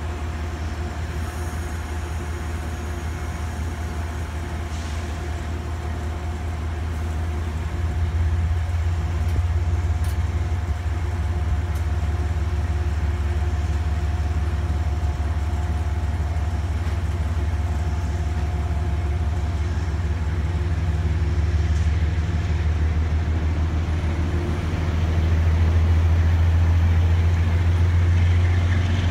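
Amtrak stainless-steel passenger cars rolling past at speed: a steady, deep rumble of wheels on rail with a faint steady hum over it, growing a little louder near the end.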